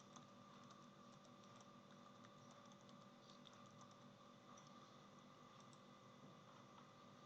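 Faint computer keyboard typing: scattered light key clicks over a steady low hum.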